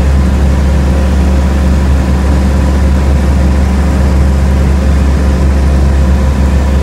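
Cessna 175's piston engine and propeller running steadily: a loud, even drone with a deep rumble and a constant hum that holds the same pitch throughout.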